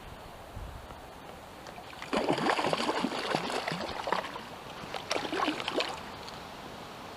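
Water splashing in two bursts, the first about two seconds long, the second about a second long.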